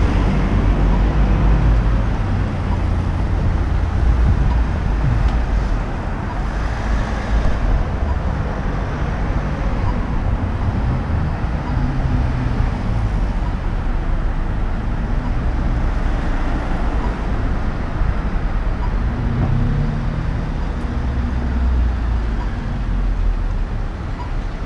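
Road traffic on a busy city street: cars passing close by one after another, their engines and tyres forming a continuous rumble that swells at the start and again about twenty seconds in.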